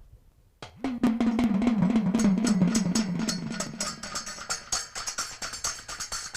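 Fast drumming on a hand drum kicking in under a second in, a rapid roll of strokes with a low ringing tone, joined about two seconds in by a bright metallic jingle.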